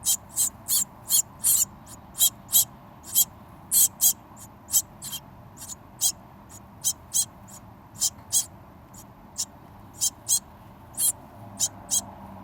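Birds giving short, high-pitched calls in quick, uneven succession, about two or three a second.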